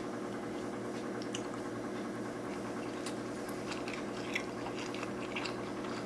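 Close-miked chewing of sushi rolls: soft wet mouth clicks and squishes, scattered and busier in the second half, over a steady low electrical hum.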